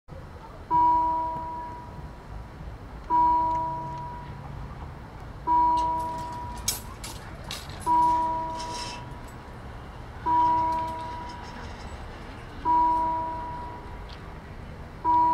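Railway level-crossing warning bell striking single dings, seven in all, about every two and a half seconds, each ringing out and fading. It signals that the crossing is closing for an approaching train. Faint clicks and rattles come midway.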